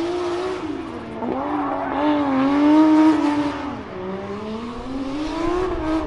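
Toyota 2JZ straight-six in a Volkswagen Beetle drift car, held high in the revs with the pitch dipping and climbing as the throttle is worked through a drift. Its rear tyres are spinning in heavy smoke.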